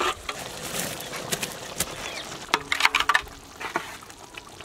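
Grated Parmesan cheese pattering into a large pot of creamy sauce, then a metal skimmer stirring in the pot, with scattered light clicks.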